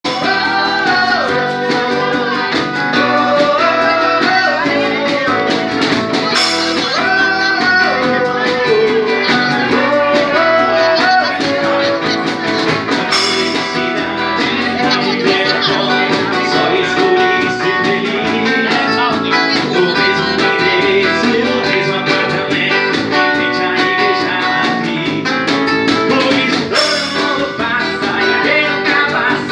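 Live band playing a song: a man singing into a microphone over acoustic guitar, electronic keyboard and drum kit, with a few sharp crashes from the drums along the way.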